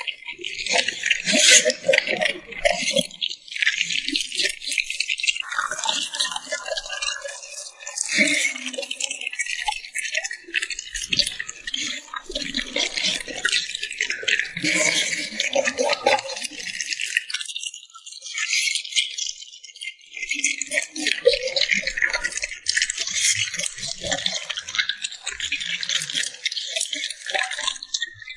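A dog eating, licking and smacking its lips close to the microphone: a dense, continuous run of quick small mouth clicks, pausing briefly twice.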